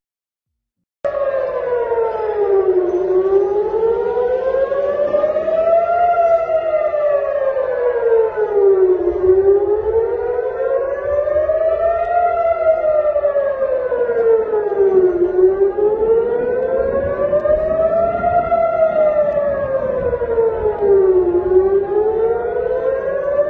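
Air-raid siren wailing: a slow, even rise and fall in pitch, about one cycle every six seconds, starting about a second in. It is the alert warning of incoming rockets.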